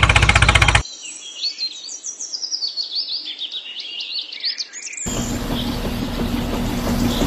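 A motor runs, then cuts off abruptly under a few seconds of rapid, high bird chirping. About two seconds before the end, a steady mechanical hum cuts in just as suddenly.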